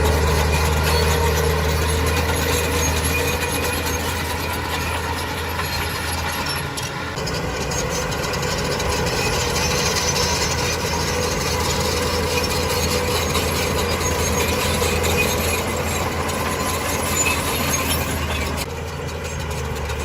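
Heavy diesel earthmoving machine running steadily, with a faint high metallic squeal over the engine.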